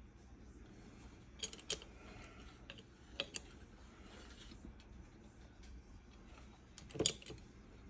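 Light clicks and taps from a plastic model car chassis and its thin plastic rods being handled over a cutting mat. There are two pairs of quick clicks in the first half, and the loudest tap, a dull knock, comes near the end.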